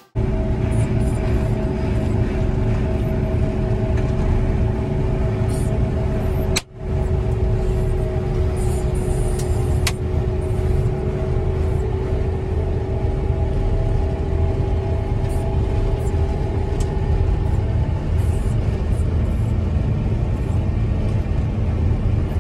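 Motor grader with a front snowplow heard from inside its cab: the diesel engine runs with a steady low rumble and a steady whine over it. The sound drops out briefly about a third of the way through, and there is a single sharp click near the middle.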